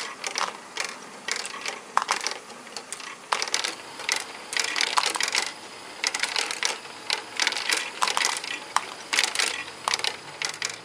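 LEGO Great Ball Contraption module running: small plastic balls clicking and clattering in quick, irregular clusters as they roll down Technic beam ramps and drop through the mechanism.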